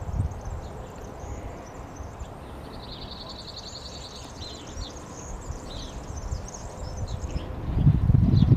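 Whinchat singing: short high scratchy chirps and one rapid trill about three seconds in. A low rumble, like wind or handling noise on the microphone, is heard at the start and swells near the end.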